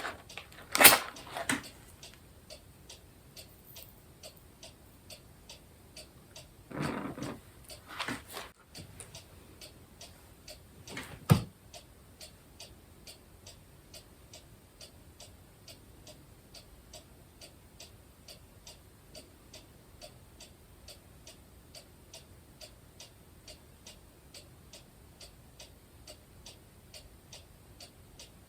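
Steady, regular ticking, like a clock in a quiet room. A few louder rustles and knocks come in the first dozen seconds: one about a second in, a longer rustle around seven to eight seconds, and a sharp knock about eleven seconds in.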